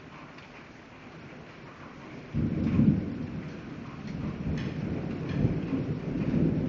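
Light rain falling, then a little over two seconds in thunder breaks suddenly, loudest just after it starts, and keeps rumbling low.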